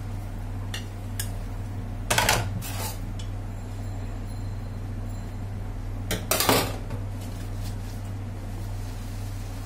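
Plastic bowls and a steel spoon clattering against a stainless-steel sink during hand dishwashing: two short bursts of knocks and clinks, about two seconds in and again about six seconds in. A steady low hum runs underneath.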